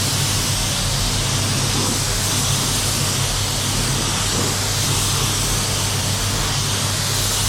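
Steady hiss of a paint spray gun over the even low hum of spray-booth fans.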